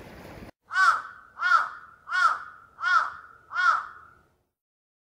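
A crow cawing five times, about two-thirds of a second apart, each a hoarse arching call, over dead silence; the last caw trails off. Just before the caws, wind and sea noise cuts off abruptly.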